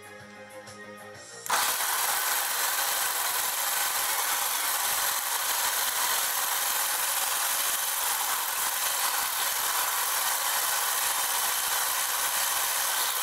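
Music, then about a second and a half in an electric hand mixer switches on and runs steadily at a loud, even whir, its wire beaters whipping heavy cream in a stainless steel bowl. The cream is nearly whipped, thickening toward stiff peaks.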